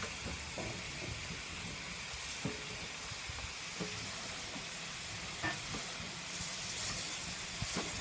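Water rushing into a steam locomotive's tender tank, a steady hiss with a few faint knocks.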